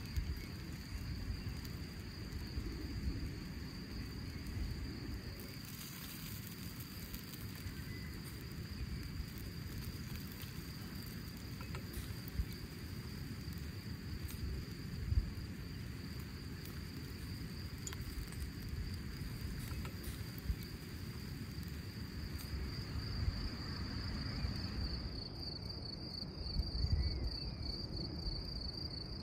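Crickets chirping in a steady high trill that grows louder near the end, over a low outdoor rumble.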